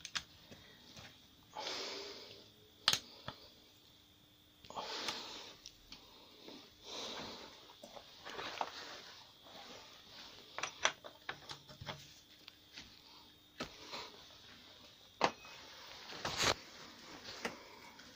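Handling noise: scattered light clicks and knocks with short rustling noises close to the microphone, a few of the clicks sharper than the rest.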